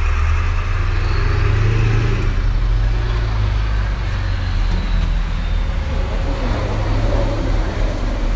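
Loud, steady low rumble of road traffic.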